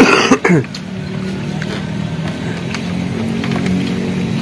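A motor running steadily with a low hum. It opens with a loud, brief sound whose pitch falls quickly.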